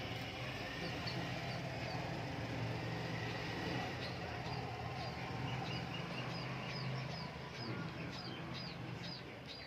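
Small birds chirping: short high chirps, sparse at first and coming several a second from about four seconds in, over a steady low hum that fades out near the end.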